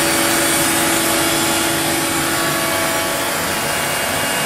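Onefinity CNC router's spindle running steadily as the bit cuts the outline of a cow into a wood sheet, an even hum with steady tones under a continuous cutting hiss.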